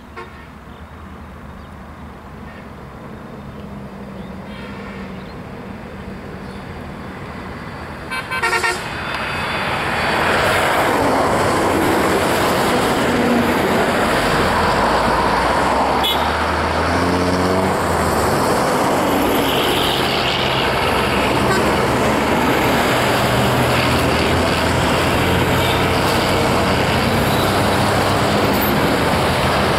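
Diesel-hauled express train running toward the microphone, its engine and track noise growing louder. The locomotive horn gives a short blast about eight seconds in. Then comes loud, steady running noise.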